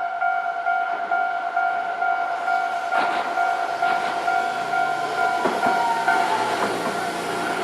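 Level crossing warning bell ringing in a steady fast repeat, while a Hankai Line tram runs over the crossing from about two and a half seconds in, its wheels clacking over the rail joints with a brief falling whine near the end.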